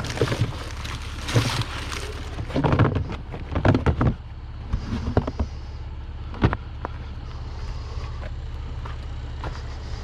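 A Honda Accord's engine runs with a steady low hum. Several knocks and clunks come in the first few seconds, and a single sharp click comes about halfway through.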